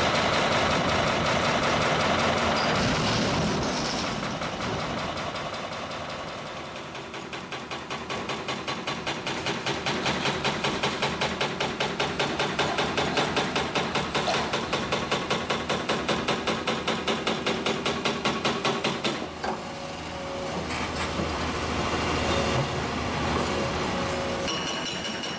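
Heavy diesel machinery runs while an excavator loads rubble into a tipper truck. Then a hydraulic breaker on an excavator arm hammers concrete in rapid, even blows for about twelve seconds and stops, leaving the machine's engine running.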